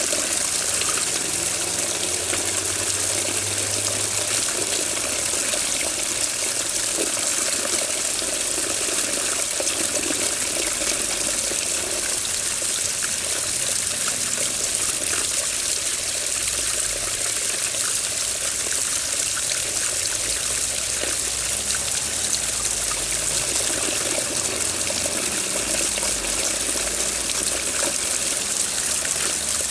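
Water running steadily, a continuous trickling, splashing rush with no breaks.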